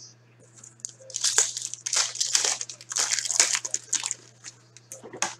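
Foil wrapper of a 2015-16 Upper Deck Trilogy hockey card pack being torn open and crinkled by hand: a dense run of crackling from about a second in until about four seconds in. A low steady hum runs underneath.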